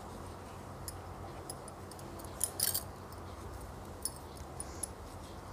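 Faint clicks and light rustling of a crochet hook and woollen yarn as double-crochet stitches are worked, with a short cluster of louder clicks about two and a half seconds in, over a steady low hum.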